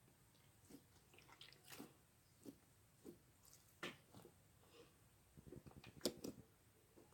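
Slime being squeezed and poked by hand, giving quiet, irregular small sticky clicks and squishes, with a quick cluster of them about six seconds in.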